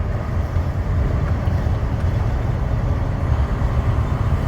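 Truck driving on the road, a steady low rumble of engine and road noise.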